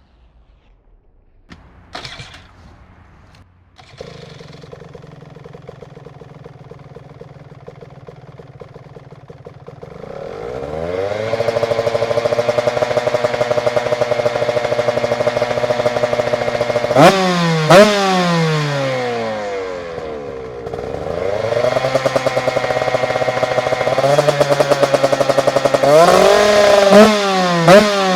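Two-stroke single-cylinder engine of a Husqvarna TE 150 enduro bike with an HGS aftermarket exhaust. It comes to life about four seconds in and idles. About ten seconds in it is held at higher revs, and it is sharply blipped on the throttle twice in the middle and several times near the end.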